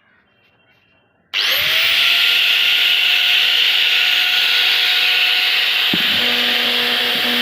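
Bosch GWS 900-100 angle grinder switched on about a second and a half in, its motor spinning up quickly to a loud, steady high whine. A lower hum joins about six seconds in.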